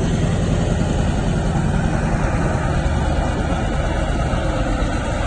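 Diesel engine of a poultry transport truck running steadily as the truck moves slowly.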